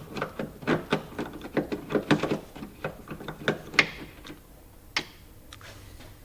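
Quick run of small sharp clicks and knocks as plastic trim fasteners on a Jeep Grand Cherokee's rear hatch are worked out by hand and with hand tools. The clicks come thick for about four seconds, then only a couple more.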